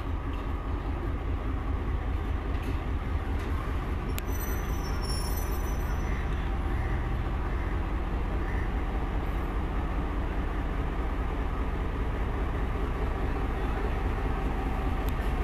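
Pakistan Railways GMCU-15 diesel-electric locomotive running close by with a steady deep engine rumble as it is shunted up to couple onto the coaches. A brief high-pitched squeal comes about four seconds in.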